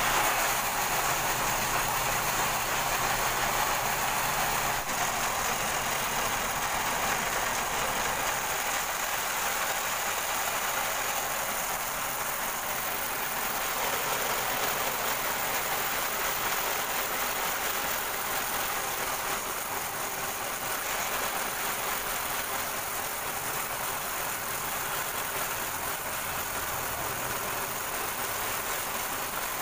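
Homemade bandsaw running steadily as its blade rips a long plank lengthwise.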